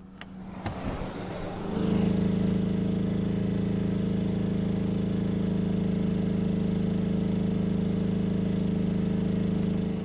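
Smarter Tools 2000-watt inverter generator with a Yamaha MZ80 single-cylinder engine, running under heavy load. It grows louder about two seconds in as the air conditioner on high cool comes on alongside the microwave, then runs steadily, powering both near its limit.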